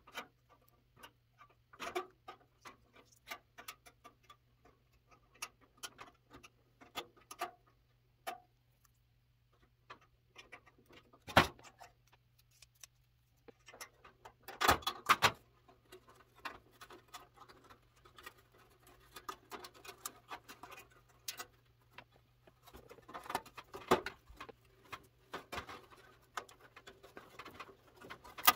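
Hand tools working on a tin metal dollhouse: pliers and scissors click, tap and scrape against the sheet-metal roof and gable. The handling comes in scattered small clicks, with a sharper metallic knock about eleven seconds in and busier stretches of handling later on.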